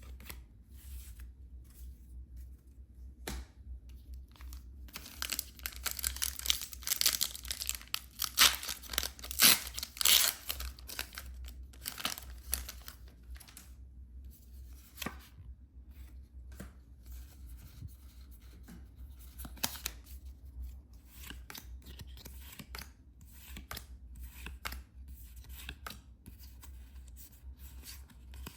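Packaging being torn open and crinkled by hand, a dense stretch of tearing from about five to thirteen seconds in, with sparse rustles and clicks before and after.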